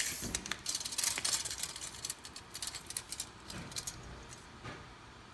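Handling noise from a steel tape measure and a metal gooseneck lighter: a sharp click at the start, then a quick run of light metallic clicks and rattles for about three seconds, thinning out to a few faint taps.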